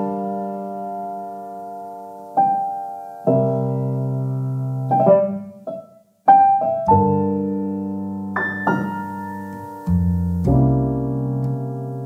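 Background music of slow piano chords, each struck and left to fade, with a brief silence about halfway through.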